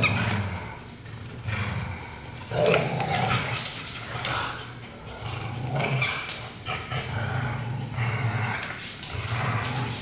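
Pit bulls and a Belgian Malinois play-growling while tugging on a Kong toy together. The low growls come in bouts of a second or two with short breaks between them.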